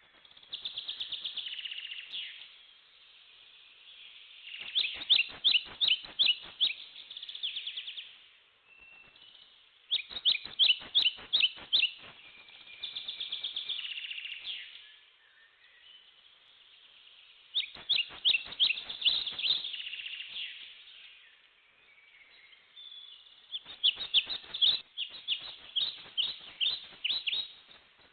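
A songbird singing the same phrase over and over, about every six seconds: a quick run of sharp chirps followed by a longer trill.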